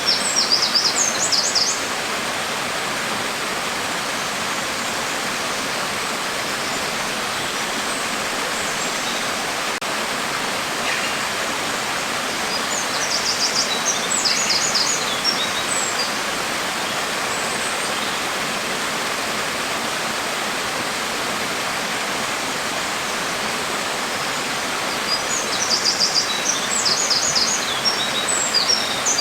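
Steady, even rain noise. A songbird chirps in quick high series three times: at the start, around the middle, and near the end.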